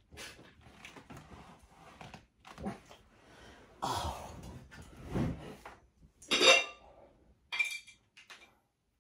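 Cutlery and dishes being handled and set down: a string of irregular clinks, knocks and rustles, with the sharpest clink about two-thirds of the way through.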